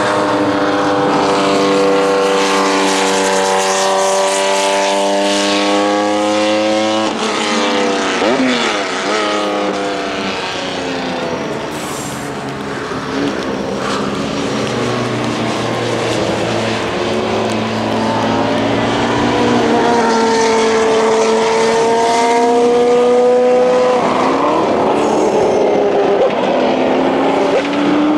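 Engine of a classic sports-prototype race car running at high revs, the note holding steady, breaking sharply about seven seconds in and again near the end, and climbing in between.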